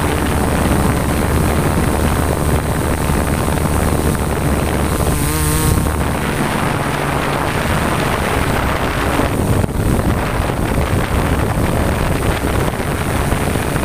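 DJI S800 hexacopter's six rotors running in flight, heard as a loud steady rotor hum with wind buffeting the onboard microphone. About five seconds in, a brief wavering whine rises through it and the low hum shifts.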